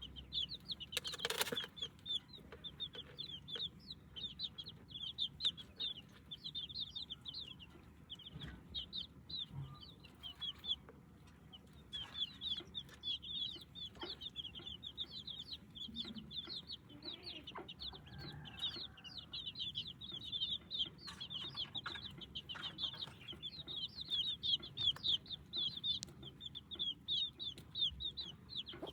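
Chicks peeping continuously, a dense stream of short high-pitched peeps several a second, with a short sharp noise about a second in.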